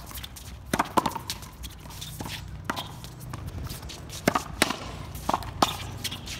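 Racquetball rally on an outdoor one-wall court: sharp pops of the ball struck by racquets and bouncing off the concrete wall, about seven in all, several coming in quick pairs.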